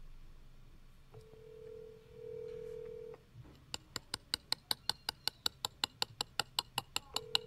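Telephone ringback tone of an outgoing call waiting to be answered: a steady tone for about two seconds, a pause of about four seconds, then the tone again near the end. A fast run of sharp clicks, about seven a second, starts partway through and fills the pause.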